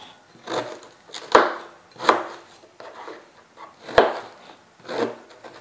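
A kitchen knife chopping a Chinese snow pear into small pieces, the blade striking the cutting board in irregular single cuts about a second apart.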